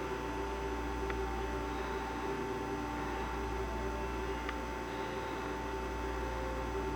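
Red Bull RBI BC2 countertop bar fridge running as it cools down: a steady hum with a few held tones, its compressor and condenser fan at work. Two faint ticks come through, about a second in and again past the middle.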